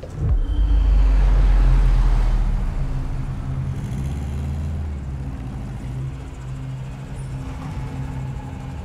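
Car engine running: a deep rumble that swells just after the start and is loudest for the first two seconds or so, then eases into a steady low drone.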